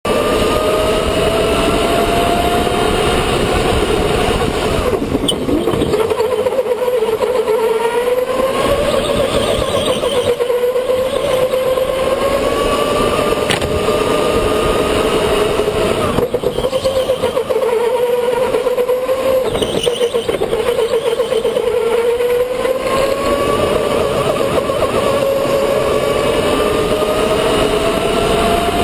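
Electric go-kart motor whining under a steady rush of noise. The whine rises in pitch as the kart speeds up and falls as it slows for corners, several times over.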